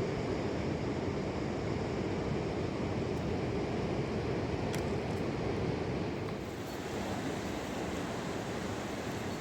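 Steady rushing of a mountain river, falling a little quieter about six and a half seconds in.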